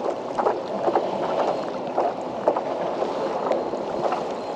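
Choppy water lapping and slapping irregularly against the hull of a Hobie Lynx kayak.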